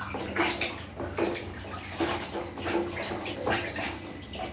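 Water splashing and sloshing in a plastic basin as hands scoop and wash in it, in repeated short splashes about two or three a second.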